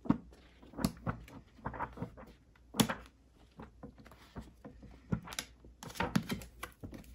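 Pages of a thick hardcover encyclopedia being flipped through by hand: irregular papery flicks and rustles, the sharpest about three seconds in.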